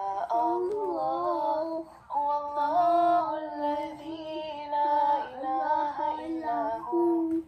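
Singing in a high voice: a simple melody of long held notes, with a short break about two seconds in.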